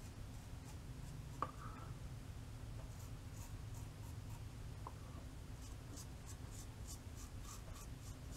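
Faint scraping strokes of a 3D-printed safety razor with an AC blade cutting lathered stubble under the nose, in short runs of about three strokes a second. A light click about a second and a half in.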